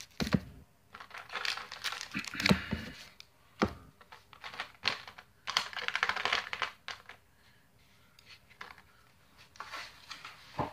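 Stiff plastic blister packaging crackling and crinkling in irregular bursts as it is opened and the booster packs are taken out.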